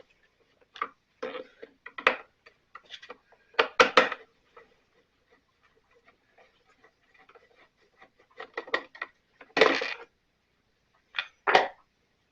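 Hand tools and plastic housing parts of a backpack blower being worked apart: scattered clicks, knocks and rubbing, with louder knocks about four seconds in, near ten seconds and near the end.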